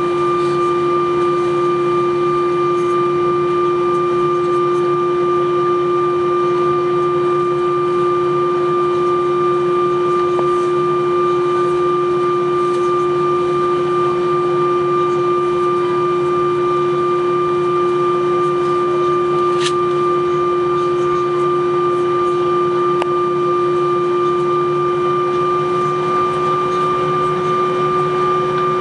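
Airbus A321 cabin noise while taxiing on the ground: the engines at taxi idle make a steady hum with a constant whine that does not change pitch. A single faint click about two-thirds of the way through.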